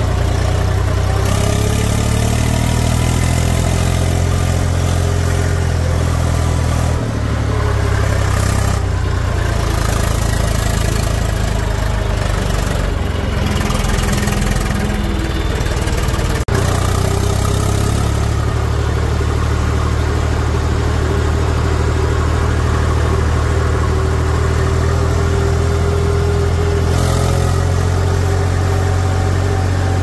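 A heavy machine's diesel engine running steadily at low to moderate revs, its pitch shifting a little, with one brief click about halfway through.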